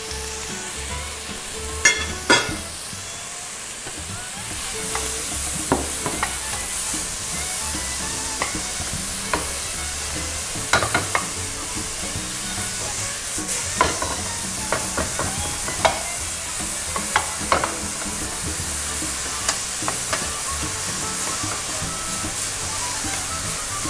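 Enoki mushrooms sizzling in a non-stick frying pan with a splash of water just added, the frying hiss growing louder about four seconds in. Many short knocks and scrapes of a wooden spatula against the pan as the mushrooms are stirred.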